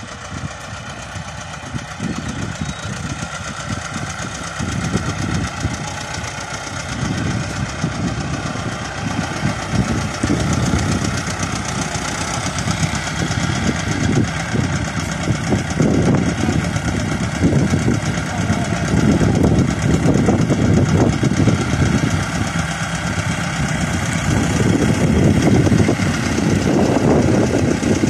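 Massey Ferguson 385 tractor's diesel engine running steadily, growing gradually louder through the stretch.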